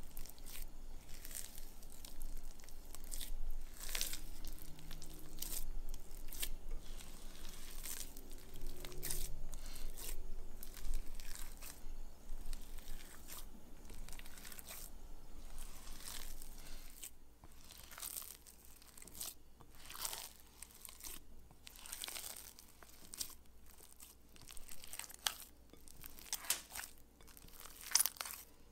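Hands squeezing and kneading a wet gluten-free multigrain sourdough dough in a glass bowl: an irregular run of sticky, wet clicks as the dough is pressed through the fingers and pulled apart, denser over the first half and sparser later.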